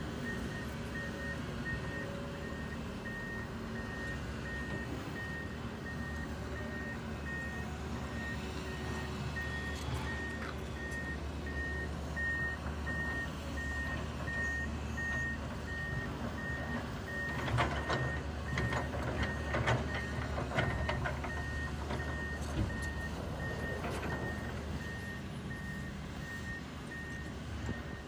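Komatsu PC160LC hydraulic excavator tracking along, its travel alarm beeping in a steady, evenly spaced rhythm over the low, even running of its diesel engine. A spell of clanks and knocks comes in the second half.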